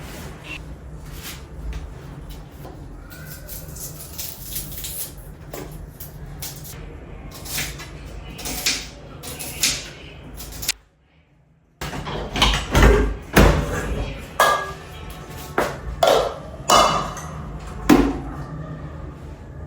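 Kitchen clatter: pots, dishes and utensils being handled, a string of knocks and clinks. A short break about eleven seconds in, after which the knocks come louder and closer together.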